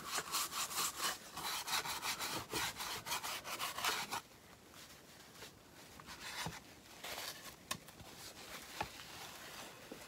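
Brown wax being rubbed back and forth over a wood shingle in quick repeated strokes for about four seconds, then stopping; a few light knocks follow.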